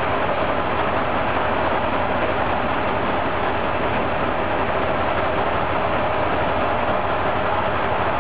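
Brossel-built ES401 catenary-maintenance railcar running slowly on the rails, heard at its bogie: a steady mix of running gear and engine noise with no distinct knocks.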